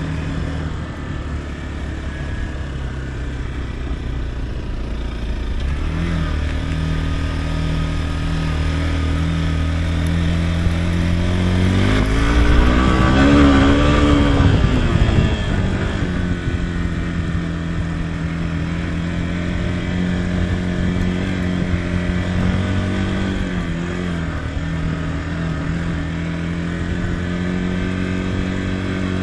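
Motorcycle engine running steadily under way. About halfway through it grows louder for a few seconds, its pitch rising and then falling again.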